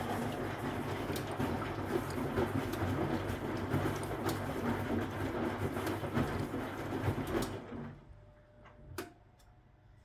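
Huwa Deluxe 65 washing machine's wash motor turning the drum on a wash cycle, the laundry tumbling over a steady motor hum with small knocks. About two and a half seconds before the end the drum stops, the pause between left and right turns of the wash rhythm, and a single click sounds during the pause.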